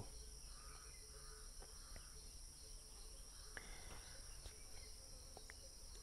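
Near silence: faint room tone with a steady high-pitched trill or whine and a few faint ticks.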